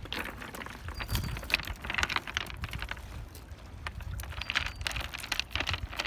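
Footsteps on a pebble beach: loose stones crunching and clicking underfoot in irregular clusters about every second or so.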